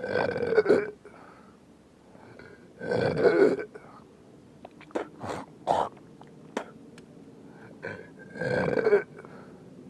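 A person belching loudly again and again: three long belches a few seconds apart, near the start, about three seconds in and near the end, with a few short sharp ones in between.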